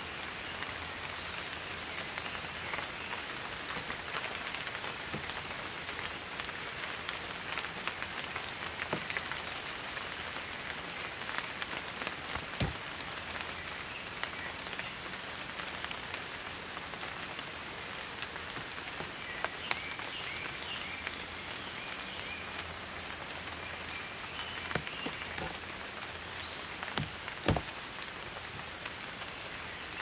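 Steady rain falling on forest foliage, with a few heavier drops striking sharply now and then, the loudest near the middle and near the end.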